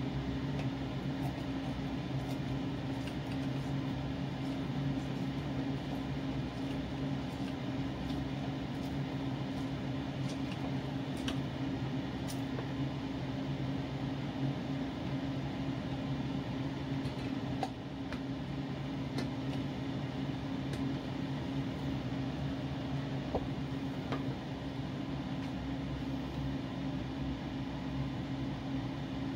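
A steady low mechanical hum at two constant pitches, with faint scattered clicks and squelches from orange halves being pressed and twisted on a plastic hand reamer juicer.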